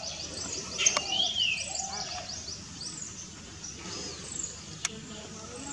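Greater racket-tailed drongos calling: rising-and-falling whistled notes over a fast run of short, high sweeping notes that fades out about three seconds in. A sharp click about a second in.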